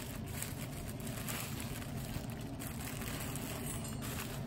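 A plastic deli bag rustling softly as a stack of thick-sliced pepperoni is pulled out of it, over a steady low hum.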